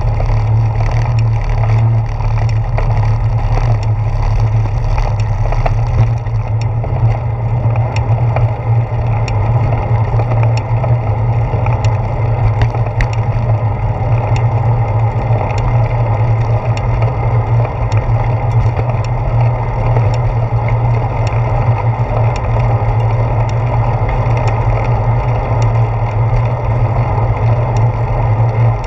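Steady low rumble of a bicycle rolling along, heard through a handlebar-mounted camera, with many short clicks and knocks from the tyres and frame. In the first part the tyres are crossing a wooden boardwalk before moving onto a paved path.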